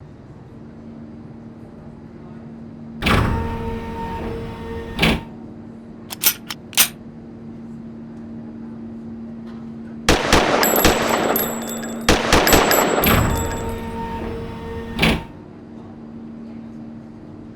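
Semi-automatic rifle gunfire: single shots about three and five seconds in, a few short sharp clicks, then rapid strings of shots from about ten to thirteen seconds and a last shot near fifteen seconds, over a steady low hum.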